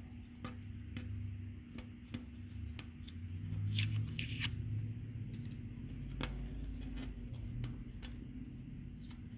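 Blue painter's tape being peeled and pulled off the sink surface by hand: light crackles and clicks, with two short rips about four seconds in.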